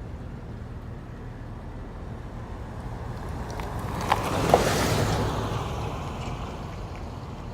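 Car driving along a road, heard from inside: a steady low road rumble. About four seconds in, a rushing noise swells and fades over roughly two seconds, with two sharp clicks near its peak.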